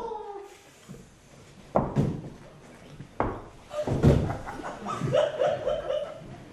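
A person falling onto padded gym mats: three thuds, the third the loudest, followed by faint voices.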